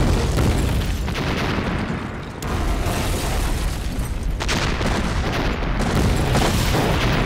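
Explosions rumbling and booming without a break, with a few sharp cracks; the din dips briefly about two seconds in and then swells again.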